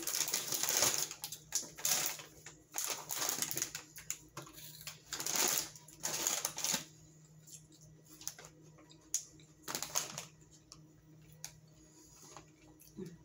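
Plastic snack bag of Bamba peanut puffs crinkling and crackling as it is pulled open and hands reach into it, for about the first seven seconds; after that only scattered faint rustles and clicks.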